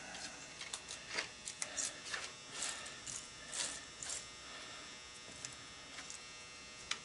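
Loose copper winding strands from a motor stator being picked off a workbench and tossed into a plastic bucket: light, irregular scratchy rustles and ticks, most of them in the first four seconds. A faint steady electrical buzz runs underneath.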